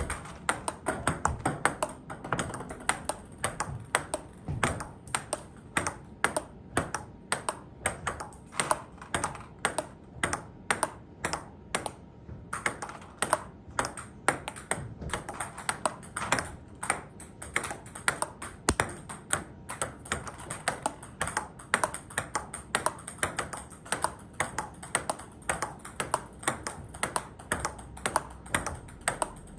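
Table tennis backhand rally: the ball clicking off the rackets and bouncing on the table in a quick, even rhythm of sharp ticks.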